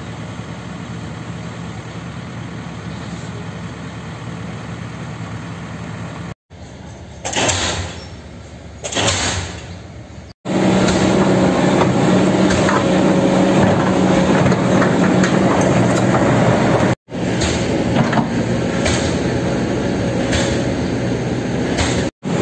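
Kobelco SK200 hydraulic excavator's diesel engine running under load while the machine digs and dumps soil. There is a quieter stretch with two short loud bursts before the middle, and the engine is loudest and steadiest from about ten seconds in.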